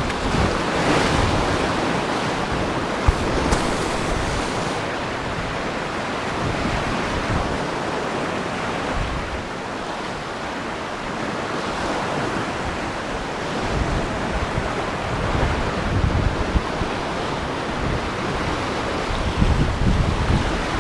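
Sea waves breaking and washing over shore rocks, swelling and easing, with gusty wind buffeting the microphone in low rumbles near the end.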